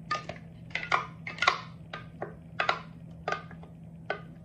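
A spoon tapping against the rim of a container about a dozen times in quick, irregular clinks with a short ring, knocking the last of the blended tamarind puree out.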